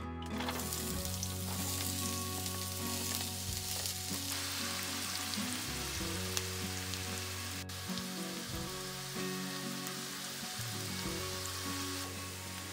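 Diced onion frying in olive oil in a frying pan: a steady sizzling hiss that starts just after the beginning and keeps on evenly.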